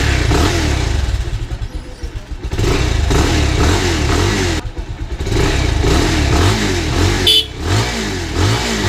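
Bajaj Pulsar 220's single-cylinder engine running just after starting, revved up and down again and again with the throttle. It is running on fresh engine oil after the oil had been low, which the owner says changes the engine sound.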